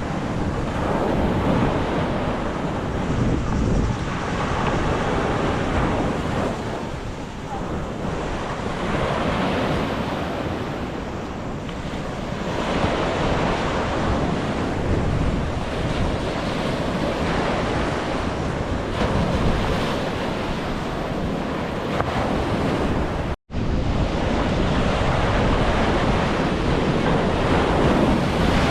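Sea waves washing onto a beach, swelling and easing every few seconds, with wind buffeting the microphone. The sound cuts out for an instant about three-quarters of the way through.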